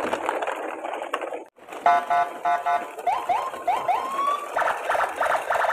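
Electronic car alarm cycling through its tones: groups of beeps, a run of short rising whoops, then rapid pulsing. It starts about two seconds in, after a rough noise that cuts off abruptly.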